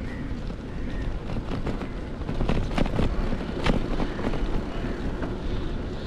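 A bicycle in motion over brick paving: wind on the microphone and a steady low tyre rumble, with a cluster of rattling knocks about halfway through.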